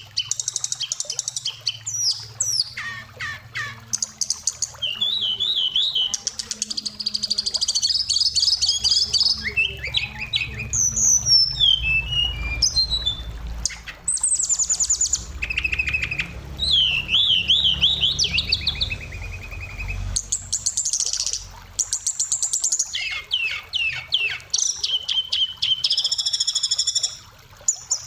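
Oriental magpie-robin singing a fast, varied song of whistles, gliding notes, trills and rapid repeated notes, filled with phrases copied from other birds.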